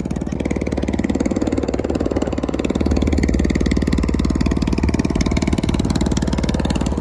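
Boat engine running steadily with a fast, even firing beat, growing a little louder about three seconds in.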